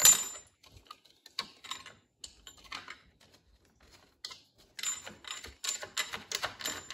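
Small metal clicks and clinks of a steel washer and nut being fitted by hand onto a bolt through a car seat frame's armrest bracket. A sharp clink comes at the start, then sparse light ticks, then a quicker run of light clicks in the last two seconds as the nut is turned on.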